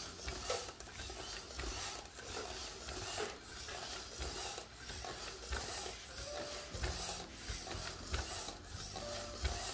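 MarsCat robot cat's leg servo motors whirring and clicking as it walks, with faint low taps along the way.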